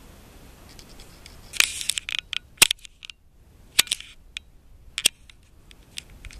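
Handling noise from a camera pushed through brush: sharp clicks and short scrapes as twigs and leaves rub against the camera and microphone. The loudest click comes about two and a half seconds in, with others near one and a half, four and five seconds in.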